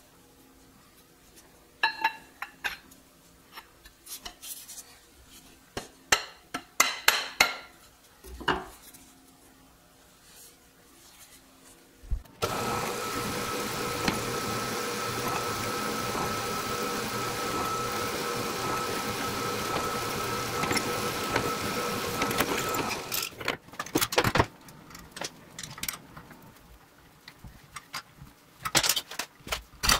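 Clinks and taps of steel driveshaft parts being handled. Then a milling machine runs steadily with a whine for about ten seconds while a twist drill bores a cross-hole through the splined coupler and shaft, followed by more metal clicks as the parts are handled again.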